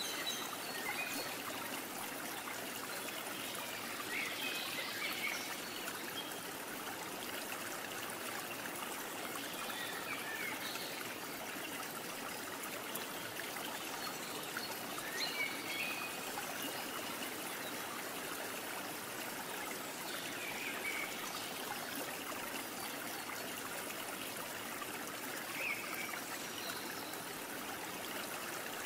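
Steady hiss of background noise, even throughout, with a few faint short high chirps now and then.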